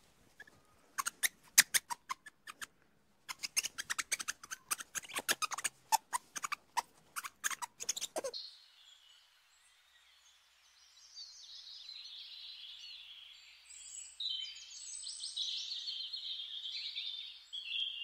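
Ring-tailed lemur calls: a quick, irregular run of sharp clicks and chirps that stops about eight seconds in. After a short lull, soft high-pitched chirping of small birds follows.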